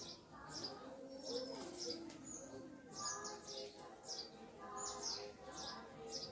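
Birds chirping: short, high, falling chirps repeating about twice a second.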